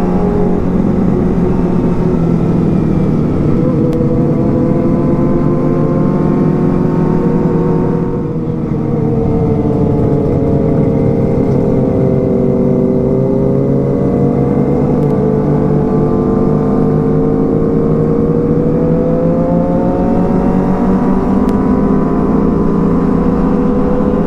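Kawasaki ZX-25R's 250 cc inline-four engine running under way, heard from on board over low wind rumble. Its pitch drops about eight seconds in, then climbs steadily again.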